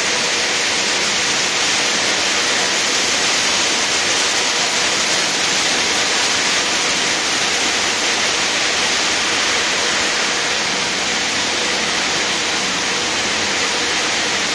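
Meyer chilli colour sorter running: a steady, loud hiss with a faint steady tone underneath.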